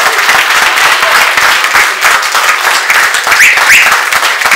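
Loud audience applause: many people clapping at once in a crowded room.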